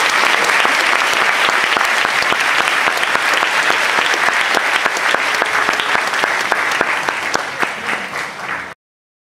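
A large audience applauding: a dense, steady patter of many hands clapping. It eases off slightly near the end and then cuts off abruptly.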